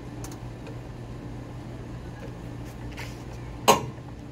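Hydraulic floor jack being pumped by its long handle, with a few faint clicks and one sharp clank near the end, over a steady low hum.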